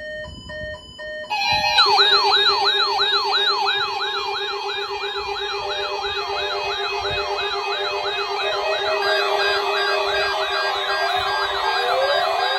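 Alert tone built from layered electronic sirens: about a second of short beeping tones, then rapid rising-and-falling yelp sweeps about three a second over a high warble and a steady lower tone. A slower rising wail joins near the end.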